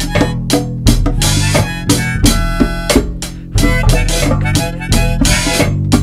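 Blues-rock band music: a harmonica playing over guitar, bass and a steady drum beat, with no vocals.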